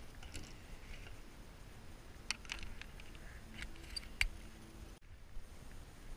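A handful of sharp clicks and taps, about two to four seconds in, from gear being handled and the camera being shifted in a layout boat. A low wind rumble on the microphone runs underneath.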